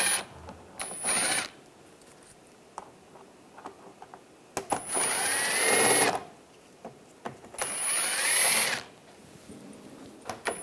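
Cordless drill backing out the screws that hold the plastic lower bumper cover, in three short runs of about a second or more each. The motor whines and its pitch climbs at the start of each run, with small clicks in the pauses between.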